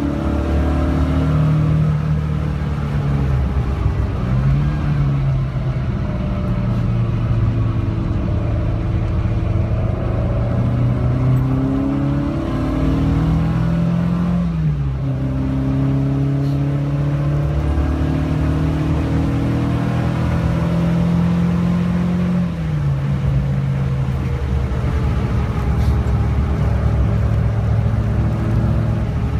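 Classic Alfa Romeo Giulia's four-cylinder engine heard from inside the cabin, running hard around a race track. Its pitch climbs under acceleration and drops sharply at gear changes, about four, fourteen and twenty-two seconds in.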